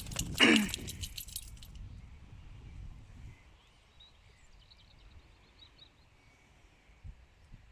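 Horses at play in a field shelter: a burst of rattling knocks in the first second or so, with a short, sharply falling squeal about half a second in. After that it goes quiet, with a few faint bird chirps.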